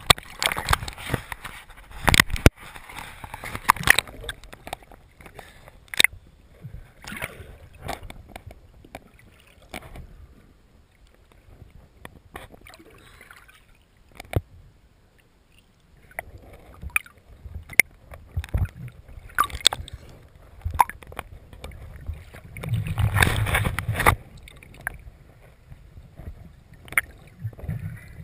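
Water sloshing and gurgling against a GoPro's waterproof housing as it bobs at the surface and dips under, with frequent sharp knocks and clicks on the housing. A quieter stretch comes in the middle, and a louder low churning comes near the end.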